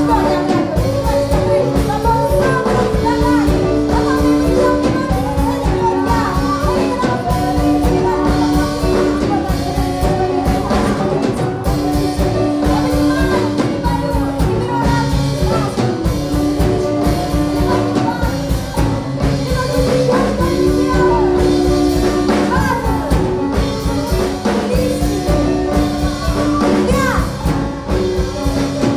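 Live band music: women singing a song over a band with a drum kit keeping a steady beat.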